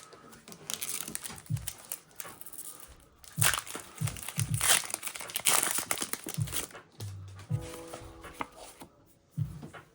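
Foil Pokémon booster pack wrapper crinkling and being torn open, the loudest crackling in the middle of the stretch.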